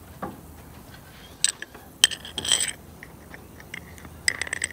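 Carbide burrs clinking and scraping against a glass mason jar as they are handled: a few scattered clicks, a short scrape about two seconds in, then a quick run of clinks near the end.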